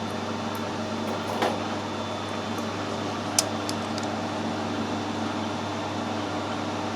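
Metal lathe running steadily with an even motor hum, and a few small clicks now and then.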